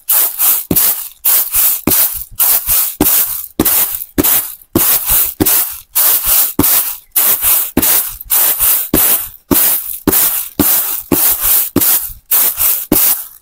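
Seeds tossed and shaken on a woven bamboo winnowing tray (soop), a rhythmic rustling swish about twice a second, as the husks are winnowed away from the seeds.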